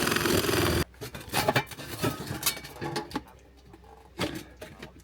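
A power tool runs loudly with a fast even rhythm and cuts off abruptly under a second in, followed by scattered knocks and clatter of tools and parts being handled.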